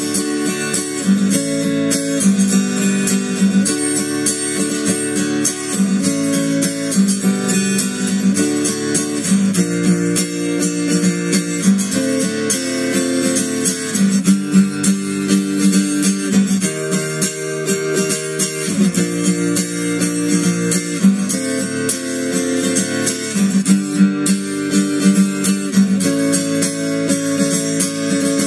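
Steel-string acoustic guitar strummed on its own in a steady rhythm, the chords changing every second or so.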